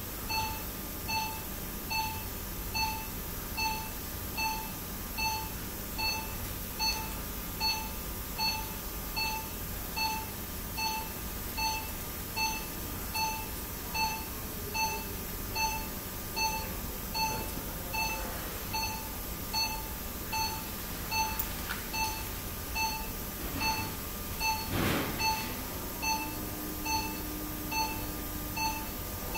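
Operating-theatre patient monitor (pulse oximeter) beeping once per heartbeat, a short even beep at one pitch a little more than once a second, which means a steady pulse of about 70 a minute.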